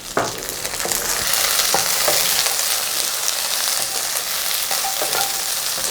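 Garlic cloves, small onions and chillies sizzling in sesame oil in a pan, with a few knocks of a spoon stirring them.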